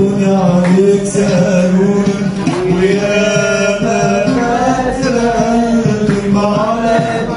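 An oud playing while a man sings over it, his melody winding up and down.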